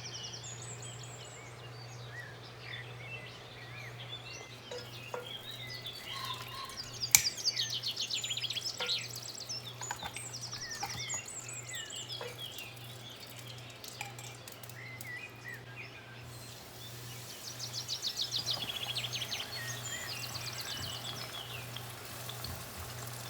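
Small birds chirping and giving fast high trills again and again, over a steady low hum. A single sharp click about seven seconds in.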